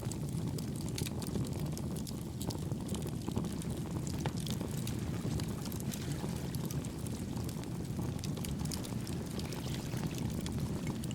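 Campfire with burning firewood crackling: irregular sharp pops and snaps over a steady low rush.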